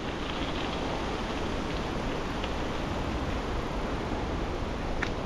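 Steady rushing noise of a bicycle rolling over a wet gravel road in rain and wind, with the tyres on the wet gravel and the weather blending into one even hiss and rumble.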